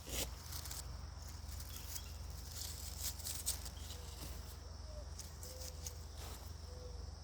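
Quiet outdoor ambience: faint, short, low-pitched bird calls repeat through the second half over a steady high insect-like buzz, with a few soft clicks.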